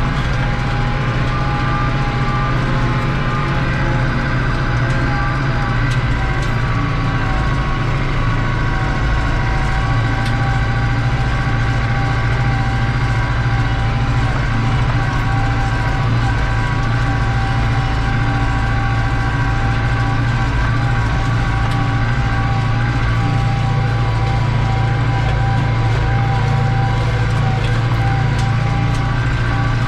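New Holland TD85 tractor's turbocharged diesel engine running steadily under load, heard from inside the cab, as it pulls a disc harrow through ploughed ground. A steady whine of the turbo sits over the engine's low hum.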